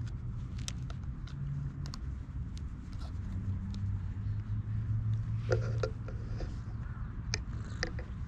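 Cat purring steadily right next to the microphone while it is scratched under the chin, with scattered soft clicks and rustles of fur rubbing against the hand, most of them in the second half.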